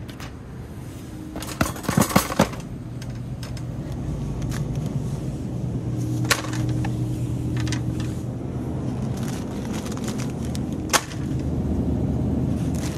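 Shopping cart rattling and rolling on a hard store floor, under a low steady hum. Sharp clacks of boxes and packages being handled come in a quick cluster about two seconds in and singly twice later.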